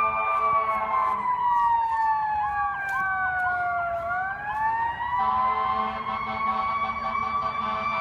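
Fire engine responding with its sirens on: one siren tone slides slowly down in pitch for about four seconds and then climbs back up. A faster yelping siren wavers over it in the middle, and a steady low blare sounds at the start and again from about five seconds in.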